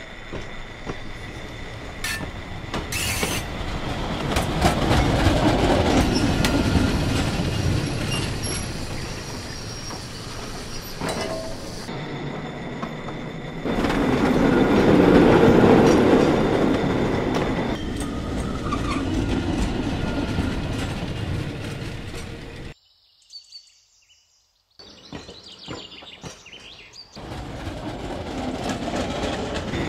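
Railroad cars rolling along the rails, wheels clattering and squealing. It comes in several cut-together stretches that swell and fade, with a break of about two seconds near silence roughly three quarters of the way through.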